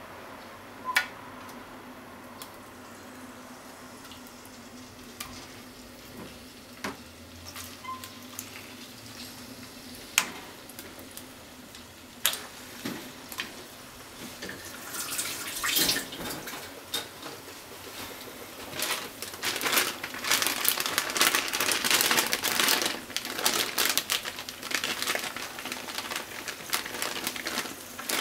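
Blocks of tofu set one at a time into an oiled non-stick frying pan, giving scattered soft knocks and clicks. From about halfway a dense crackling and rustling builds and grows louder as potato starch is shaken over the tofu from a plastic bag.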